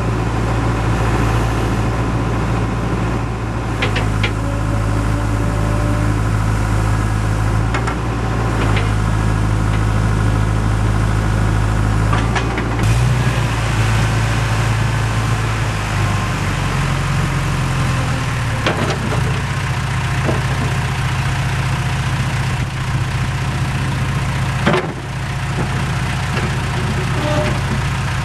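John Deere 310E backhoe loader's diesel engine running steadily. Its pitch steps up about two-thirds of the way through as the engine speeds up. A few sharp knocks sound over it.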